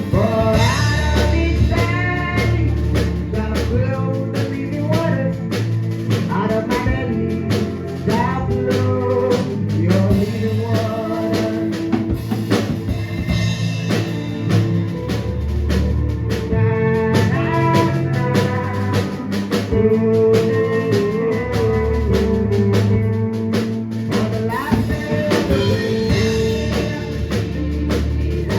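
A live band playing a steady gospel groove on drum kit and bass, with a melodic lead line weaving above it and no clear lyrics.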